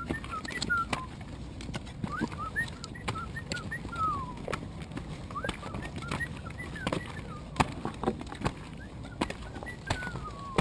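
Pembroke Welsh corgi puppies whimpering in short high-pitched squeaks that rise and fall, coming in little bursts every second or two, with scattered sharp taps of footsteps on wooden steps.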